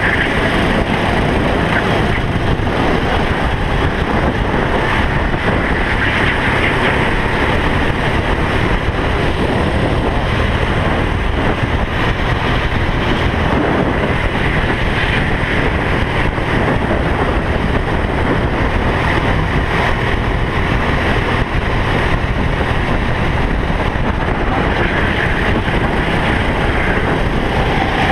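Onboard sound of a racing kart at speed: its engine running hard close by, mixed with wind noise on the microphone, the engine note swelling and easing every few seconds.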